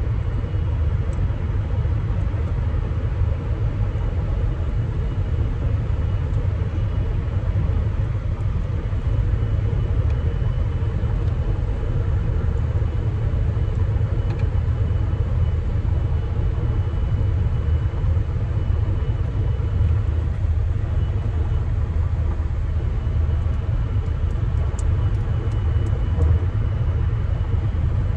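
Steady low rumble of a car heard from inside the cabin, even throughout.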